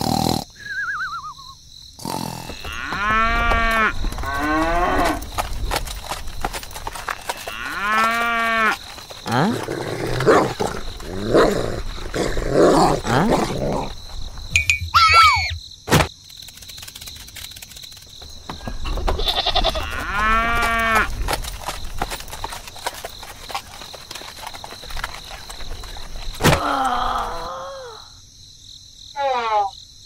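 Animal calls like cattle lowing, several groups of short rising-and-falling notes a few seconds apart, with scattered clicks and a steady high hiss behind them.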